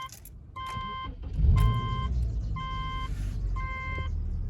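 A car's warning chime beeps about once a second while the Subaru's engine cranks and starts about a second and a half in, then idles roughly with a steady low rumble; the engine has a misfire.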